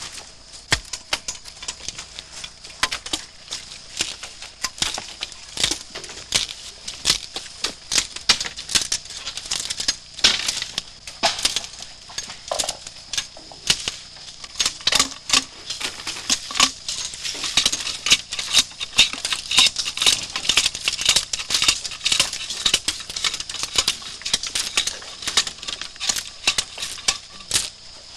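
Knife blades chopping and scraping at bamboo poles as the side branches are stripped off, a quick, irregular run of sharp knocks and clacks that grows busier and louder in the second half.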